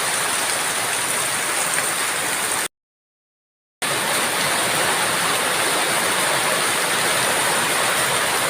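Heavy rain falling in a steady, even hiss, briefly cutting out to silence for about a second near a third of the way in.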